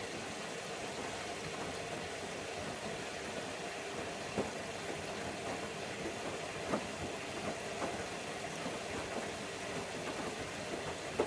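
Bosch Logixx 8 WAS28466 front-loading washing machine doing its fill tumble, turning the drum while water comes in at the start of the wash. A steady hum with a few soft knocks.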